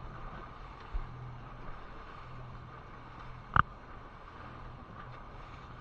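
Twin Suzuki outboard motors running with the boat under way: a steady low engine hum under wind and water noise. A sharp knock about three and a half seconds in, with a smaller one about a second in.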